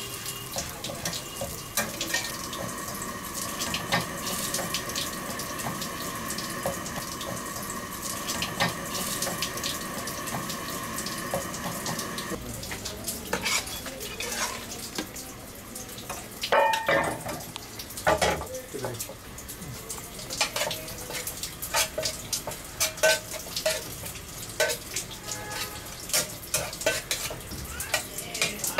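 Egg-coated roti frying in a pan with a steady sizzling hiss. After an abrupt change about twelve seconds in, a metal spatula knocks and scrapes against a pan of chicken masala filling, many sharp strikes.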